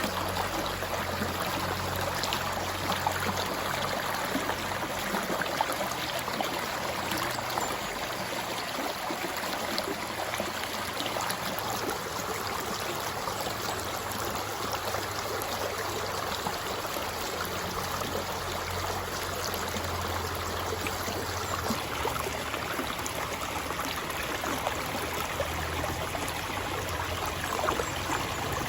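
River water flowing: a steady, even rush and babble of water.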